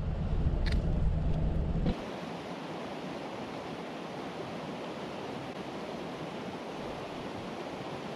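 Wind rumbling on the microphone with a couple of sharp clicks, then, about two seconds in, an abrupt change to the steady rushing of a small moorland stream.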